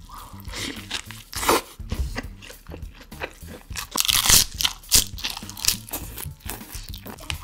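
Close-miked eating: crunchy bites and chewing of a cheeseburger and crisp iceberg lettuce leaves, with the loudest crunches about a second and a half in and again around four seconds in.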